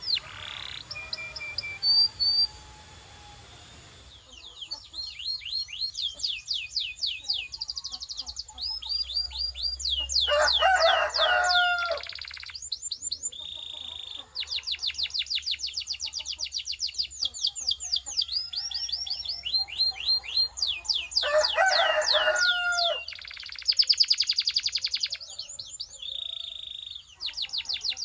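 Domestic canary singing long rolling trills of rapidly repeated falling notes. Twice the trills are broken by a lower, warbling phrase, and a few short held whistled notes come between them.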